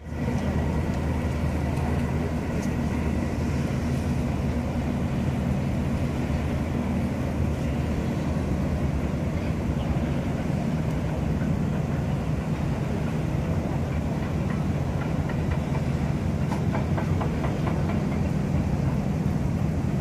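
A steady low engine drone with several even hum tones, unchanging throughout. Faint light ticks come in briefly about two-thirds of the way in.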